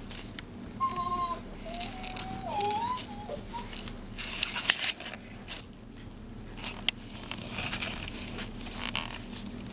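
Puppies whining and yipping in short, high, wavering cries while they play-fight, followed by scuffling and rustling as they tumble over a plush toy and tinsel.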